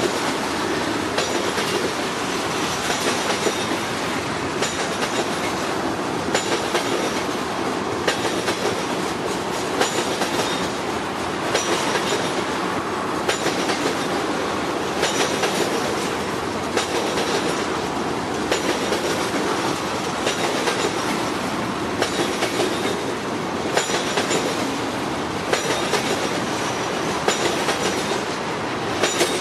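A slow CSX freight train's cars rolling past: wheels clicking over rail joints in an uneven rhythm over a steady rumble, with a faint high wheel squeal.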